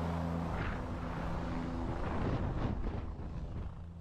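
Helicopter running close by in a cliff rescue, a steady low hum of rotor and engine under a rushing, wind-like noise, easing a little toward the end.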